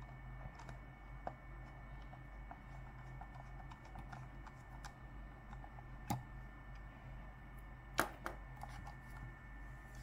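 Faint scattered small clicks and taps of hands working on a computer mouse, with sharper clicks about six and eight seconds in, over a steady low electrical hum.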